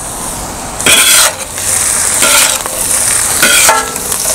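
Shredded cabbage and onions sizzling in hot oil on a large flat metal griddle. About a second in, two flat metal spatula blades start working the vegetables: three clattering, lightly ringing strokes against the griddle, about one a second.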